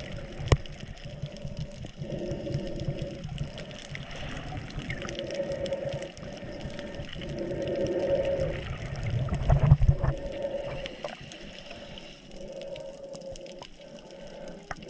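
Muffled water sounds around a GoPro camera while snorkeling, with a low hum that comes and goes every second or two. A sharp knock comes just after the start and a loud low rumble near the end.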